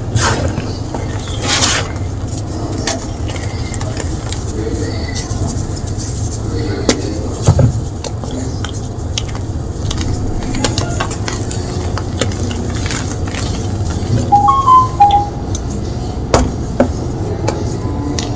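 Gym chalk being crushed, with scattered crunches and clicks, a few louder ones about halfway through and near the end, over a steady low background hum.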